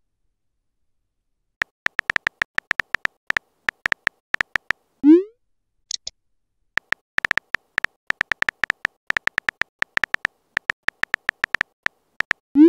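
Phone keyboard tap sounds clicking in quick runs as text messages are typed, with a short rising pop as a message is sent about five seconds in and again at the end.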